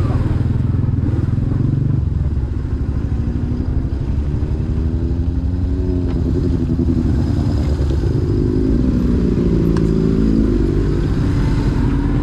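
Motorcycle engine idling close by, while other motorcycles ride up, their engine notes rising and falling in pitch from about three seconds in.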